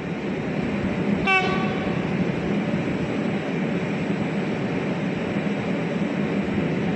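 A train passing through the station with a continuous rumble of wheels on rails. A short, single horn blast sounds about a second in.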